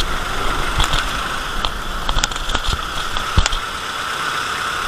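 Busy city street noise: steady traffic with vehicle engines running. A few short knocks are heard scattered through it.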